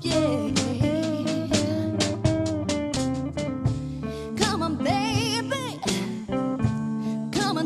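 Blues band playing an instrumental break: a bending, vibrato-laden lead line, most likely the guitar, over a walking bass and a steady beat.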